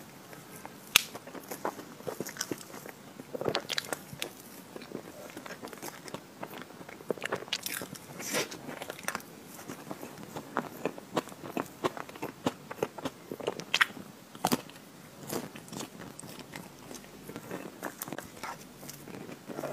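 Close-miked eating of crumbly chocolate ice cream cake: mouth sounds of biting and chewing with irregular sharp clicks and crackles, along with a spoon scooping the cake.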